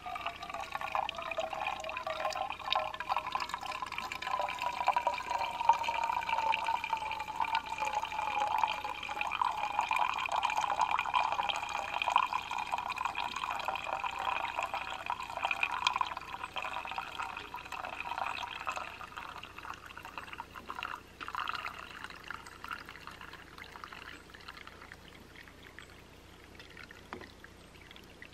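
Brewed Mors-style coffee poured in a slow, thin stream from a stainless cook pot into a stainless steel camp cup: a steady trickle and splash with a ringing tone from the metal cup. The pour is eased off the settled grounds and tapers to a quieter dribble over the last several seconds.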